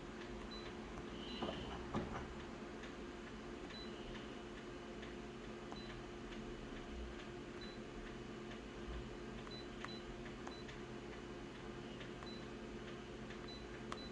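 Quiet room tone with a steady low hum, faint scattered clicks and short faint high beeps, and a single knock about two seconds in.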